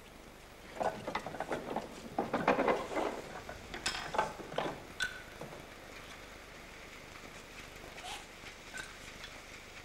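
A quick run of clattering knocks, clicks and rattles from a metal frame being handled, busiest for about four seconds, followed by a few scattered clicks.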